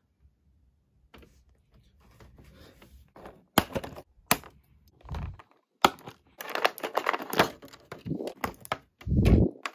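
Clear plastic blister tray crinkling and crackling as it is handled, cut with scissors and pulled apart, with several sharp snips and snaps. A louder low thump of handling comes near the end.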